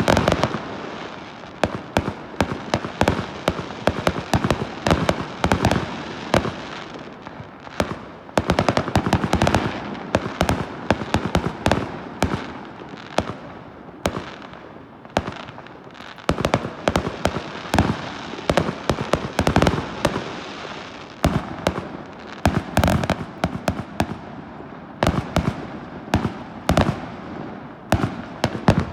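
Fireworks going off in rapid succession: a near-continuous run of sharp bangs and cracks, densest about eight to ten seconds in and again around twenty-two to twenty-four seconds in.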